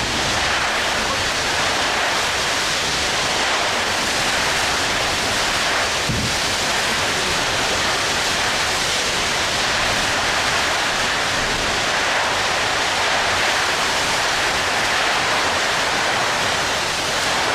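Loud, steady rushing noise like a strong wind gust, dropped into the warning as a sound effect: it cuts in and cuts off abruptly and holds an even level throughout.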